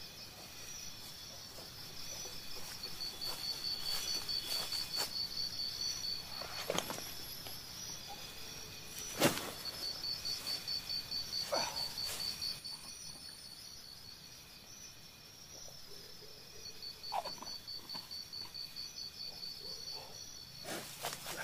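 Insects calling in high, pulsing runs of a few seconds each over a steady high hum, with rustling footsteps in dry grass and a sharp knock about nine seconds in.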